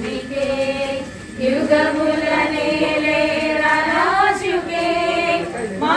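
A group of people singing a worship song together in long held notes, with a short break a little over a second in.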